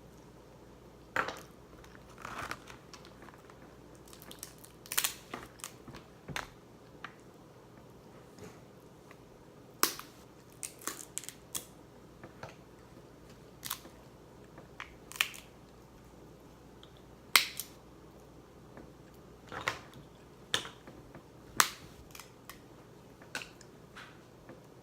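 Seafood shells cracking and clicking as they are pulled apart and eaten, with chewing between. The snaps are sharp and come irregularly, some close together and some several seconds apart; one of the loudest comes a little after the middle.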